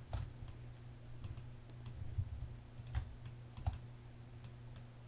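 Faint clicks of a computer mouse and keyboard, a few scattered clicks as mesh edges are selected one after another, over a steady low hum.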